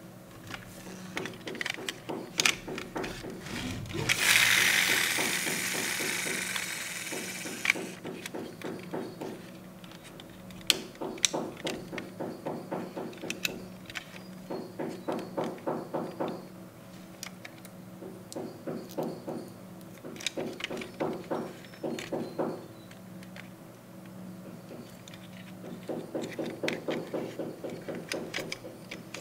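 Small clicks and rattles of a die-cast toy FJ Cruiser's hinged doors being opened and shut by hand, over steady background tones. About four seconds in, a loud hissing burst lasts some three seconds.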